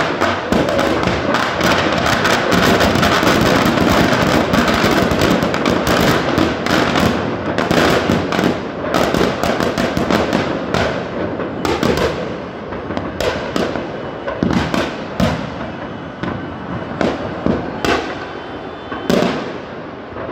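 Firecrackers packed into a burning Ravana effigy going off: a dense, rapid crackle of bangs at first, thinning after about eleven seconds to separate, spaced-out bangs.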